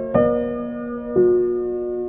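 Slow, gentle piano background music, with a new note or chord struck about twice and left ringing.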